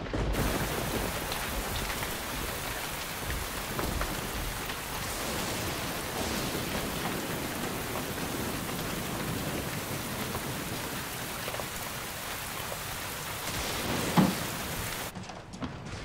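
Heavy rain pouring down, starting suddenly and stopping abruptly near the end. About fourteen seconds in comes a single sharp crack, the loudest moment.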